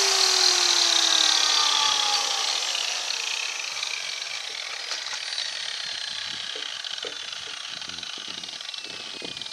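Large angle grinder winding down after being switched off, its whine slowly sinking in pitch and fading over the first three seconds or so. A few faint knocks follow near the end.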